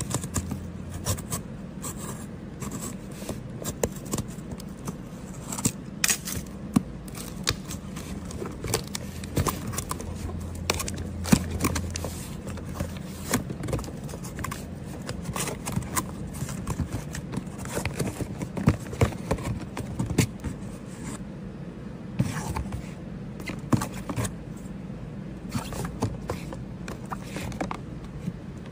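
Small objects being handled at close range: irregular taps, clicks and scrapes. A low steady hum runs under them for about the first twelve seconds.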